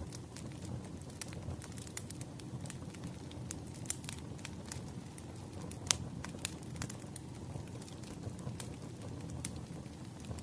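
Wood fire crackling: irregular sharp pops and snaps over a steady low rustle of burning logs, with one louder pop about six seconds in.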